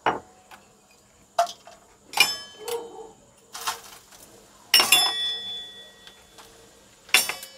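A wide aluminium cooking pot clinking as whole spices are tipped into it, with about six sharp clinks. Several of the clinks leave the pot's metal ringing briefly, loudest about two, five and seven seconds in.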